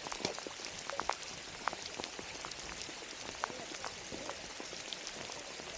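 Steady rain falling, with many separate drops striking close by as sharp little ticks over a constant hiss.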